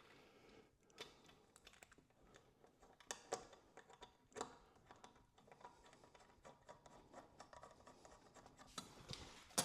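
Faint scratching and a few light clicks of metal shower-door handle hardware, with its rubber gaskets, being threaded together by hand.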